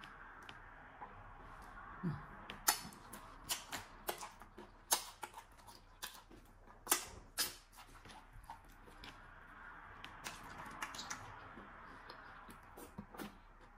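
Close-up eating sounds from chewing fufu with okra soup and licking the fingers: irregular wet lip smacks and mouth clicks, over a faint steady background hiss.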